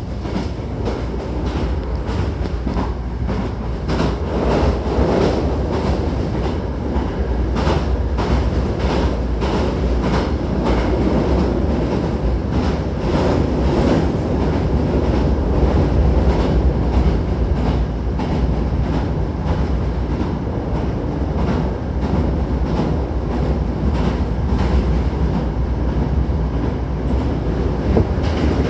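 Hankyu 1000-series electric train running, heard inside the car: a steady low rumble of wheels on rail with many short clicks of the wheels over rail joints.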